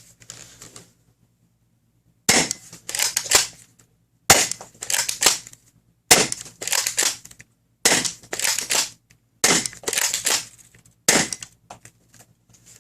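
Dart Zone Pro Mk2 spring-powered blaster fired six times, roughly every two seconds, each shot a sharp snap followed by a second or so of clacking as the blaster is primed again for the next half-length foam dart.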